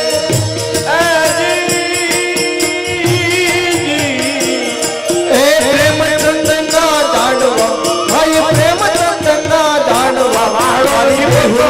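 Gujarati devotional bhajan music: a wavering melody over steady rattling hand percussion.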